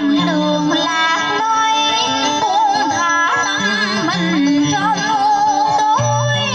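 Vietnamese vọng cổ (cải lương) music: melodic lines that slide and waver in pitch over a lower accompaniment, playing continuously.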